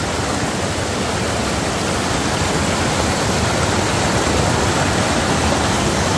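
River water rushing steadily over rocks, a full, even roar with no break.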